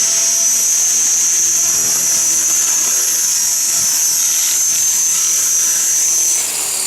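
Art-Tech Genius 500 electric RC helicopter running: a steady high-pitched whine from its motor and rotors, which falls in pitch and drops in level as it slows near the end.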